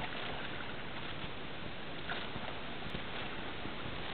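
Steady rushing noise of wind and surf at the shoreline, with a few faint splashes of small feet in shallow water.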